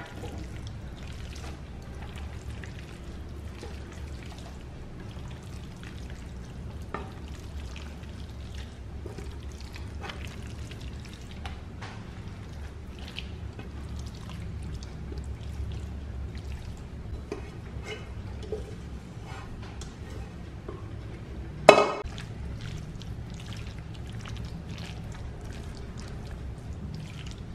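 A spoon scraping and clicking as thick salpicão chicken salad is spooned from a bowl into a serving dish, over a steady low hum. There is one sharp knock about 22 seconds in.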